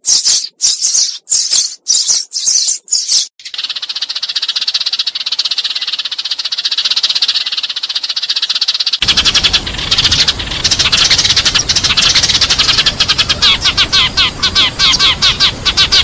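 A flock of Eurasian tree sparrows chirping and chattering: flock calls. Separate chirps come about three a second at first, then about three seconds in they merge into a dense, continuous chatter that grows louder and fuller about nine seconds in.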